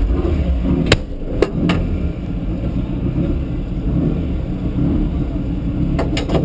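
Turbocharged VW Beetle drag car's engine running at idle with an uneven low rumble. A few sharp clicks and knocks come about a second in and again near the end as the driver's safety gear is fastened.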